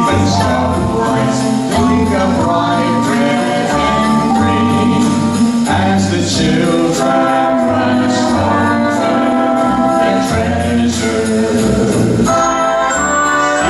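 A Christmas song performed with singing over a backing of jingle bells and a bass line that steps to a new note about once a second.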